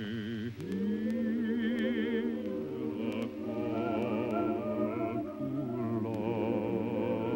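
A choir singing a slow chant, several voices holding long, wavering notes that shift pitch every second or two.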